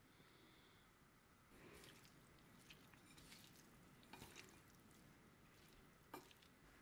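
Faint wet squishing and dripping as sauced noodles are tossed with chopsticks in a ceramic bowl, with a few light clicks, the sharpest about six seconds in.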